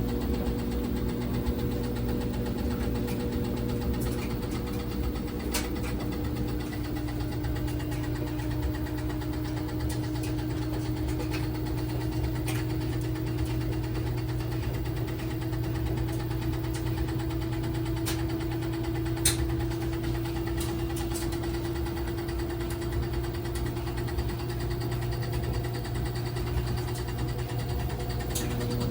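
LG WT1101CW top-load washing machine spinning: a steady motor hum with a whine that rises slowly in pitch as the drum speeds up, and a few sharp knocks, the loudest about two-thirds of the way in. The owner hears it as the machine shaking with a knocking motor.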